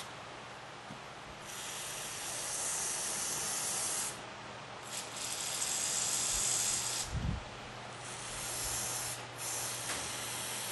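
Aerosol carburetor cleaner sprayed onto a small two-stroke carburetor in four hissing bursts of one to two and a half seconds each, the first two the longest, to flush out remaining dirt. A soft low thud comes about seven seconds in.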